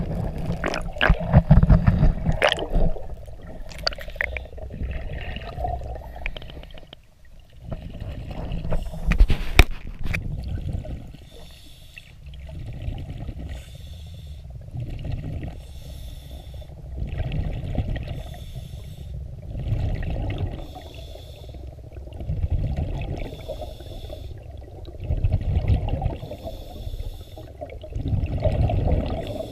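Splashing and knocks as the scuba diver goes under, then the diver breathing through a regulator underwater: a hiss on each inhale alternating with the low bubbling rumble of each exhale, about every two and a half seconds.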